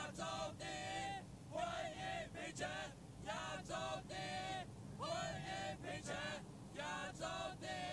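Crowd chanting a slogan in short, rhythmic phrases, with a steady low crowd noise underneath.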